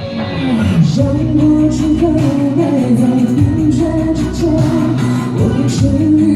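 Live pop ballad: a female singer's voice carrying a sustained, wavering melody over instrumental accompaniment, heard through a hall's sound system.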